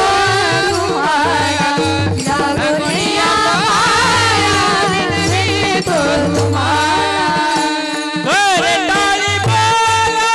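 Devotional kirtan music: a voice holding a long melodic line that glides and wavers in pitch, over steady held accompanying notes and a repeating hand-drum beat.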